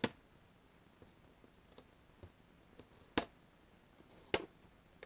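Three sharp snaps with faint ticks between, typical of side cutters snipping the plastic zip ties that hold a radio-controlled truck in its box.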